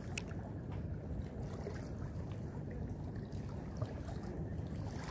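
Wind rumbling on the microphone: a steady low buffeting with no pitched engine note. There is a light click just after the start.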